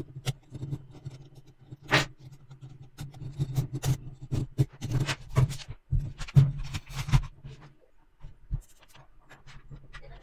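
Small metal construction-kit parts clicking and clinking as they are handled and fitted together, in irregular taps, over a low hum that stops about eight seconds in.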